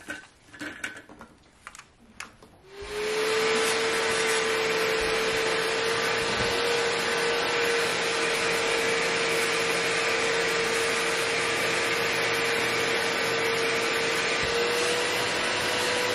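Bissell portable spot cleaner switched on about three seconds in, after a few light handling clicks. Its motor whines up as it spins up, then runs steadily with loud suction noise while the hand tool works the couch upholstery.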